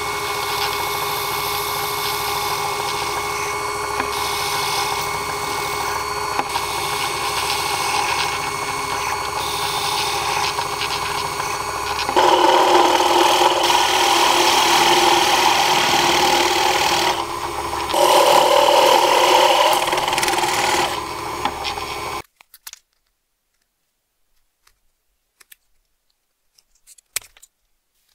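Small bench drill press running steadily, getting louder for two stretches of several seconds as the bit bores holes through a thin orange sheet laid on a wood block. The motor stops suddenly about 22 seconds in, followed by a few faint snips of scissors near the end.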